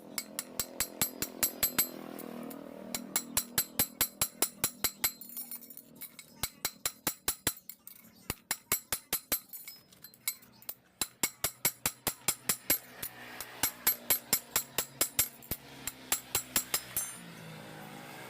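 Rapid metallic clicking from hand-tool work, about five sharp clicks a second, in runs broken by short pauses, over a faint steady hum.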